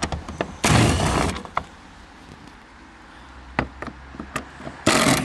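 A cordless power driver with an 8mm socket running in two short spurts, about a second in and again near the end, undoing the bumper-bracket bolts, with light clicks of metal between.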